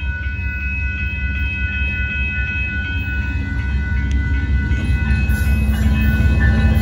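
Railroad crossing bell ringing steadily over the low rumble of an approaching Amtrak GE P42DC diesel locomotive, which grows louder as the train nears the crossing.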